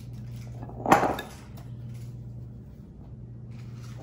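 A single knock of the glass mixing bowl of custard about a second in, with a short ring. Under it runs a steady low hum.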